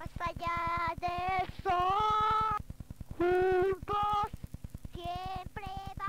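A child's high singing voice in short phrases of held, wavering notes, over a rapid, even low pulse.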